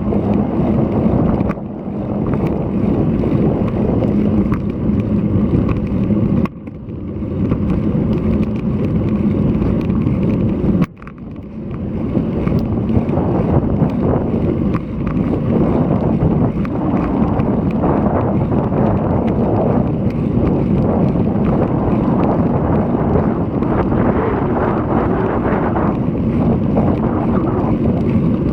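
Wind rushing over an action camera's microphone while riding a bicycle, loud and steady, with a few sudden brief drops in the first half.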